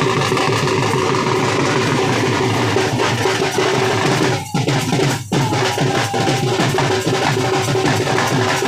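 Several dhol drums beaten together in a fast, dense bhangra rhythm, with two short breaks about halfway through.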